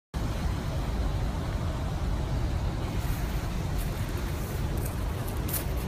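Steady rumble and hiss of surf breaking on a rocky pebble beach, with wind rumbling on the microphone.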